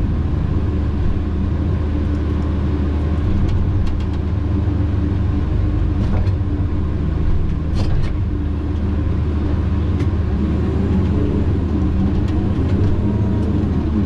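Tigercat 610E skidder's diesel engine running steadily, with a few sharp clanks now and then. Its pitch wavers up and down near the end.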